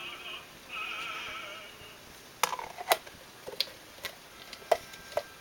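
Operatic singing with a wide vibrato for about the first two seconds, then it fades out. Several sharp clicks and knocks from plastic tubs and lids being handled follow.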